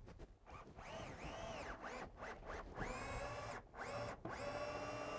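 Cordless drill-driver driving screws into the wooden stair stringer in several short runs, its motor whine rising and falling with each pull of the trigger.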